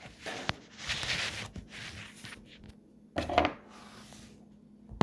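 Rustling and scraping of cardboard and plastic packaging being handled close to the phone microphone, with a louder scrape about three seconds in and a sharp click at the very end.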